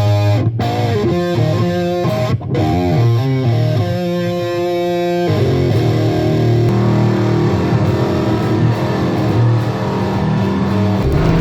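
Intro music led by electric guitar, a sequence of picked chords that turns into a fuller, distorted section about halfway through.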